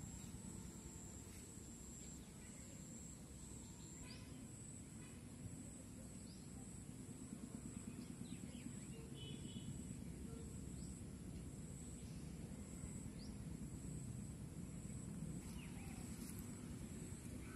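Faint outdoor ambience: a steady low rumble under a high, pulsing insect trill, with scattered short bird chirps.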